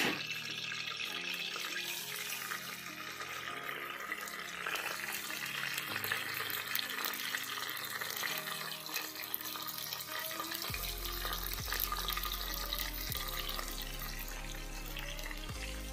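Chopped onions sizzling steadily in hot oil in an aluminium pressure-cooker pan. Faint background music plays underneath.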